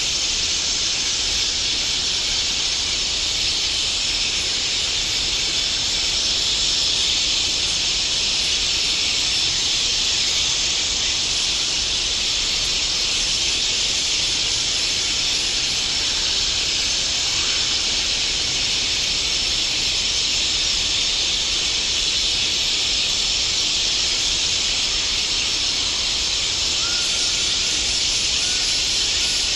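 A steady, even hiss that does not change in level, with no voice or tune in it.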